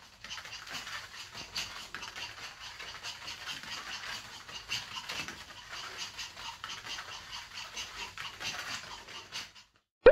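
Small Bichon Frise puppies' paws and claws pattering on a foam play mat as they scamper and play: a busy, irregular run of light taps and scrabbles that stops just before the end. A brief loud blip follows right at the very end.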